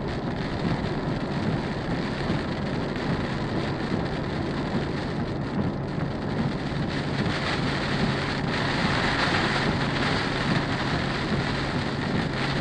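Heavy rain falling on a moving car, heard from inside the cabin, over steady road noise and a low hum. The rain gets louder about seven seconds in.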